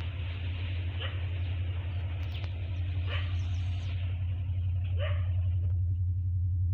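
Steady low drone of an approaching S13 diesel multiple unit train, growing gradually louder, with a dog barking three times.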